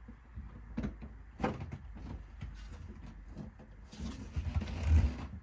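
Sound-deadening mat being handled and pressed onto the car's bare metal panels: two dull knocks, then a rustling scrape with low thumps near the end.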